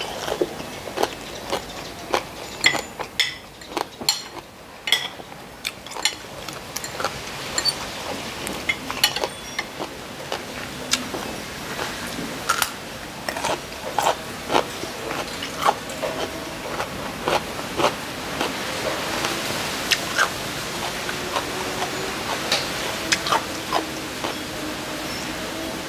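Close-miked eating: a metal spoon and fork clink and scrape on a ceramic plate, with crisp bites into raw cucumber and chewing. Faint steady tones come in near the end.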